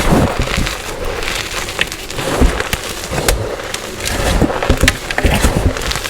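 Dyed gym chalk being crunched, a dense run of irregular crackles and sharp snaps as the chalk breaks and crumbles.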